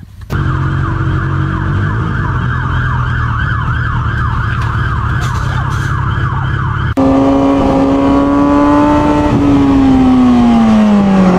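An emergency vehicle siren in a fast yelp, rising and falling about three times a second over a low engine hum. It cuts off abruptly about seven seconds in and gives way to a motorcycle engine, which holds a steady note and then drops in pitch as the revs fall.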